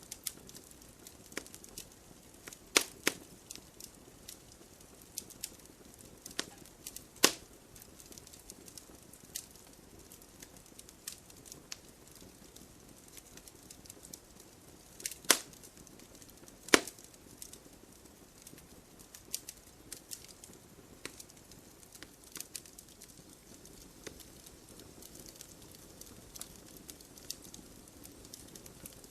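Wood campfire burning, with irregular crackles over a faint steady hiss. A few louder sharp pops stand out: two near the start and two about a second and a half apart midway.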